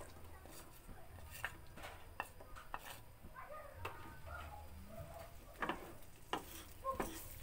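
Chopped chilies, garlic and shallots tipped into a frying pan of oil, then a wooden spatula knocking and scraping against the pan as they are stirred, with a few sharper knocks near the end.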